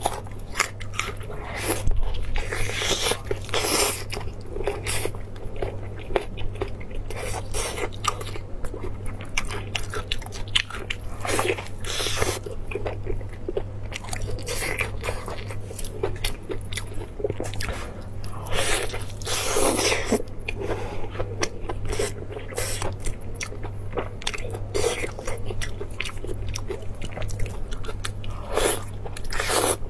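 Close-miked eating of braised beef: wet biting and chewing along with the meat being torn apart by gloved hands, a dense, irregular run of clicks and squelches. A steady low hum runs beneath.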